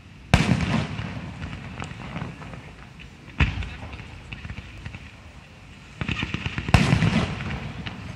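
Aerial fireworks: three sharp shell bursts about three seconds apart, with crackling between them and a dense run of small pops over the last couple of seconds.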